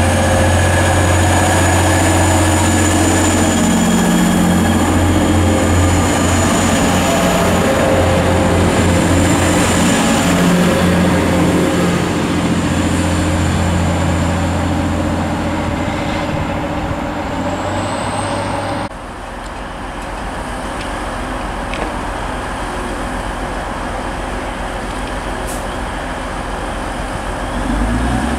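Class 185 diesel multiple units' diesel engines running, a deep steady drone with a high thin whine over it. The whine rises briefly, then the sound drops abruptly about two-thirds of the way through to a quieter, even rumble, which swells again near the end.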